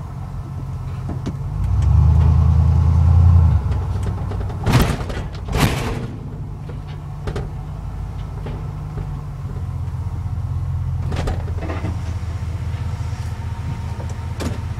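Ford F-150 pickup truck running with a steady low hum, louder for about a second and a half some two seconds in, with two sharp knocks around five seconds in and a few lighter clicks later.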